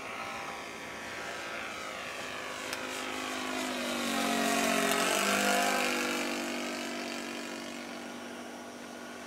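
Propeller-driven model Cessna airplane flying past: the engine drone grows louder, peaks about five seconds in with a sudden drop in pitch as it passes, then fades away.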